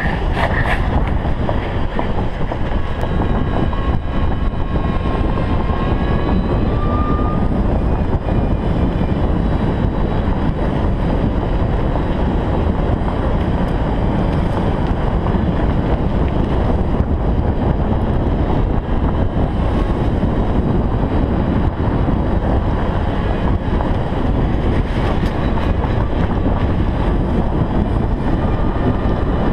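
Steady loud wind rumble on the microphone of a camera riding on a moving golf cart, mixed with the cart's running noise. A faint rising whine comes through a few seconds in.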